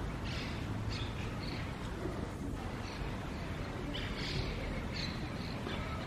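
Short, high bird chirps, a few in the first second and a half and another cluster from about four seconds in, over a steady low background rumble.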